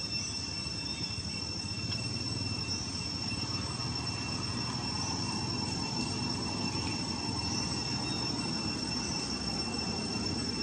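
Insects droning steadily at two high pitches, over an even low rumble.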